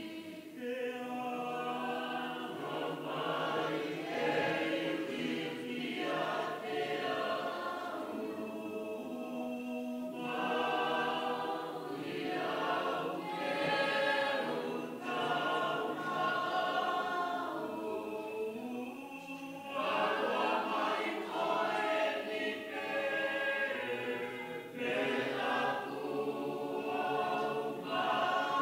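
A choir singing a hymn in long sustained phrases, with short breaks between lines.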